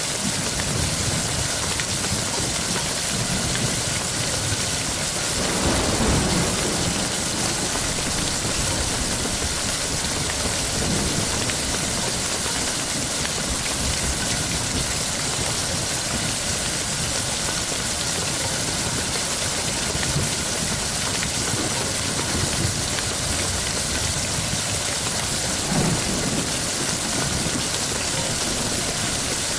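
Steady heavy rain hissing throughout, with a low rumble of thunder about six seconds in and another short one near the end.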